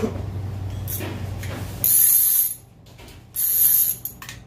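The clicker on a red Avet conventional reel buzzes as the spool is spun, in two bursts of under a second each, with a third starting right at the end. It is a loud clicker, the kind meant to be heard when a fish is running line off.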